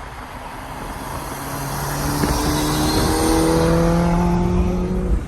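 A vehicle engine speeding up, its note climbing in small steps and growing louder, then cut off abruptly just before the end.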